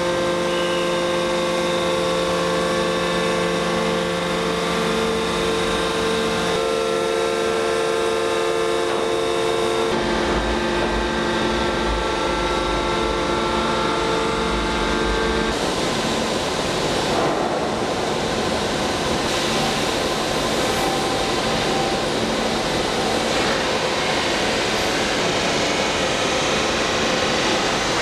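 Industrial machinery of a hot-forging line running: a steady hum of several held tones over a noise bed. The tones shift about 10 s in, and about 15 s in the sound turns rougher and noisier, with fewer clear tones.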